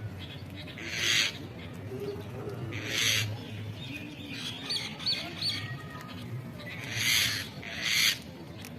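Birds calling: four harsh, hissing screeches spaced irregularly, with a quick run of three short whistled notes in the middle.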